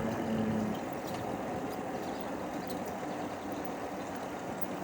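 Steady rumbling noise of a trike riding along a path: wheels rolling and wind on the microphone, with a faint steady hum.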